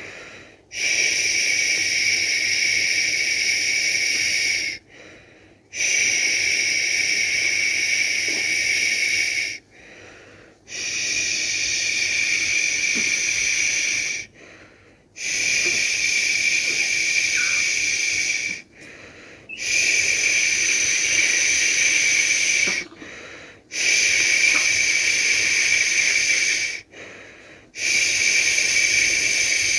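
A person shushing, a long 'shhh' held for about three to four seconds at a time with short breaks for breath, about seven times over; a shushing sound for lulling a baby to sleep.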